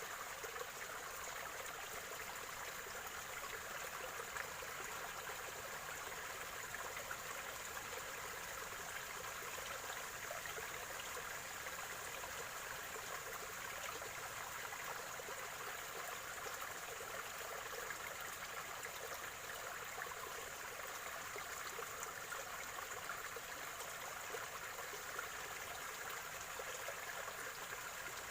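Water of a small spring-fed stream gurgling and trickling steadily, without a break.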